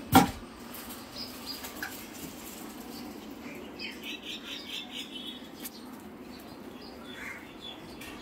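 Soft footsteps of running shoes walking on a tiled floor over a steady low hum, with one sharp knock at the very start. About four seconds in comes a quick run of high chirps, with a fainter one near the end.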